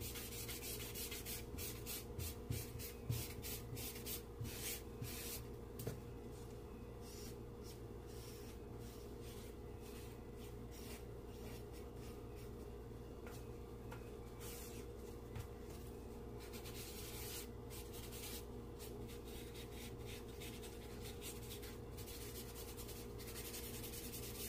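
Charcoal scratching and rubbing on drawing paper as a sketch is shaded, in quick strokes that come thickest in the first few seconds and again a little past the middle.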